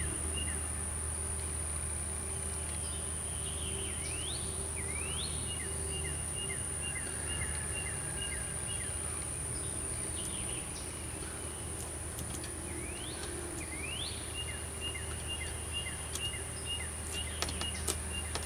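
Outdoor ambience: a steady high insect drone, with a bird giving pairs of quick rising whistles about four seconds and thirteen seconds in, among runs of short chirps. A steady low hum lies underneath, and a few clicks come near the end as the glass and window frame are handled.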